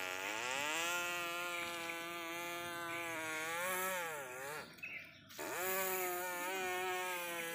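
A person's voice imitating a truck engine as a toy truck is pulled along: two long drones, each starting with a dip and rise in pitch, broken by a short pause about five seconds in.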